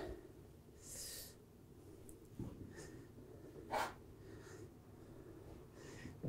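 Faint breaths and sniffs of a man working quietly, a few short hisses a second or two apart, with a light tap about two and a half seconds in.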